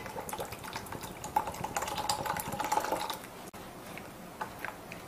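Pear juice pouring from a can into a soy-sauce marinade in a stainless steel bowl, with many small splashes and clicks for about three seconds. After that come quieter scattered ticks as a spatula stirs the liquid.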